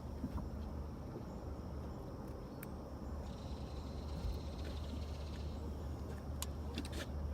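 Quiet outdoor ambience: a steady low hum with a few light clicks, and a high buzzing insect trill that starts about three seconds in and lasts about two seconds.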